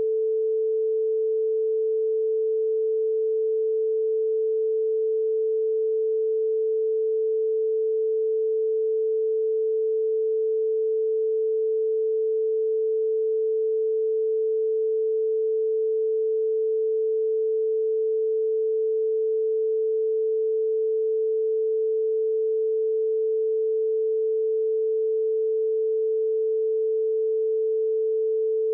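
A single steady pure tone, held unbroken at one pitch and constant level. It is a censor tone covering a redacted passage of the recorded speech.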